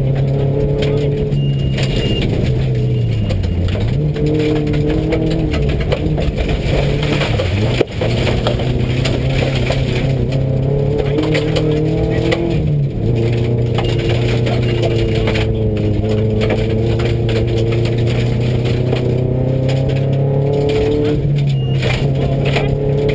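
Subaru rally car's engine running hard on a gravel stage, heard from inside the cabin; its pitch dips sharply twice in the first eight seconds, then climbs and levels again. Gravel road noise and cabin rattles run under it.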